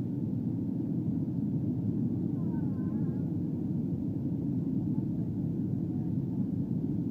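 Steady low rumble of airliner cabin noise in flight, engine and airflow heard from inside the cabin during the descent to landing.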